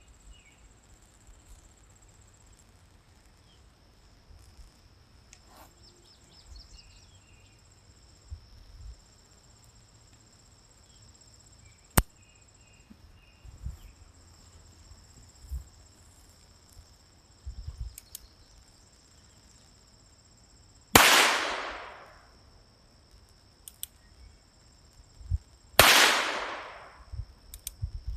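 Ruger .22 revolver firing twice, about five seconds apart, each shot with a long echoing tail. A single sharp click comes earlier, and insects drone steadily throughout.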